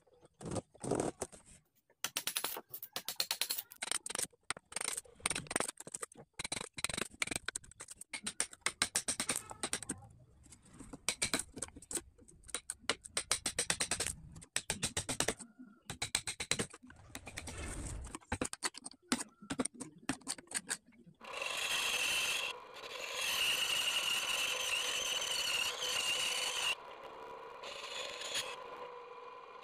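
Hand chisel cutting and paring out a slot in a wooden crossbow stock: runs of short, sharp cuts and taps with brief pauses. About 21 seconds in, a scroll saw starts and runs steadily as its thin blade cuts a small sheet.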